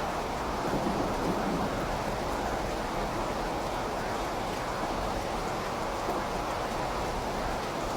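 Steady, continuous rain: an even hiss with a low rumble underneath.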